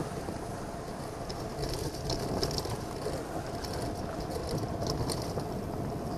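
Wind rushing over the microphone of a bike-mounted camera on a moving bicycle, with steady road rumble and a short high hiss now and then.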